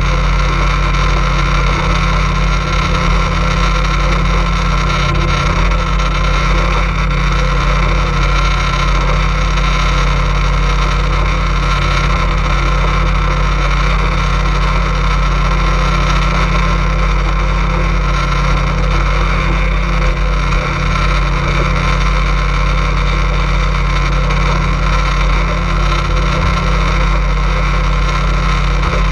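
Motorboat engine running steadily, a constant drone that does not change in speed or loudness.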